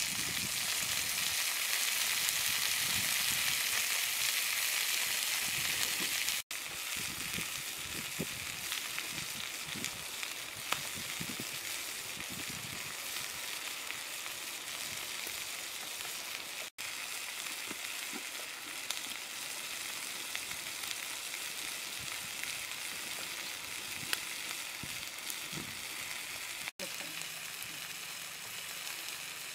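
Stuffed frogs frying on a hot, oiled flat stone over a wood fire: a steady sizzling hiss with an occasional small pop, loudest in the first six seconds or so.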